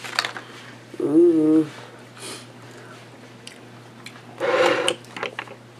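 A woman's short hummed 'mm' about a second in, with light clicks and taps of a spoon spreading Miracle Whip on an ear of corn, and a brief noisy breath or mouth sound near the end.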